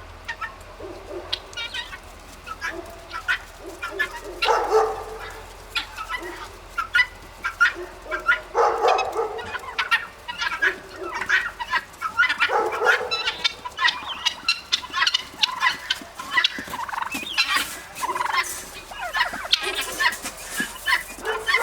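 Guinea fowl calling in a rapid, noisy chatter, with louder calls about every four seconds, as a duck is chased and caught among them in their house.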